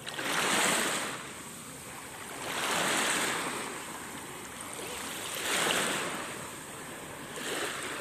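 Small waves lapping and washing up on a sandy beach: the surf swells and fades four times, a couple of seconds apart.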